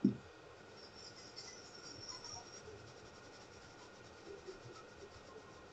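A brush wet with alcohol scrubbing a circuit board, a faint scratchy rubbing, loosening leftover solder flux residue. A short knock right at the start.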